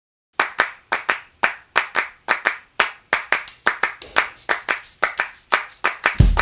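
Background music: a track opening on a steady hand-clap beat, joined about three seconds in by high sustained synth tones, with bass and drums coming in near the end.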